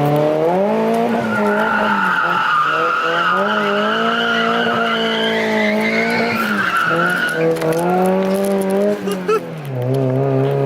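NB Mazda Miata's four-cylinder engine held at high revs while the tyres squeal through a slide on dry pavement. The revs dip briefly and climb again a few times, and the squeal fades out about three-quarters of the way through.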